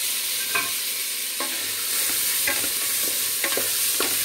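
Green peas and onions sizzling in an aluminium pressure cooker, with a spatula scraping and knocking against the pot several times as they are stirred.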